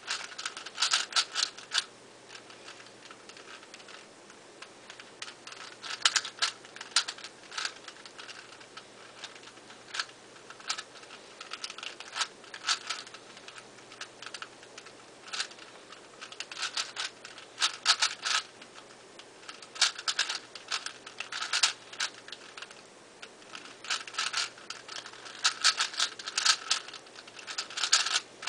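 ShengShou 4x4 plastic speedcube being turned by hand: runs of quick clicking and clacking turns, broken by short pauses.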